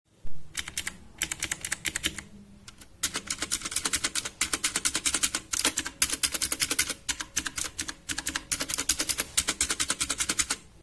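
Fast typing on an HP GK400Y mechanical gaming keyboard: rapid runs of key clicks broken by several short pauses.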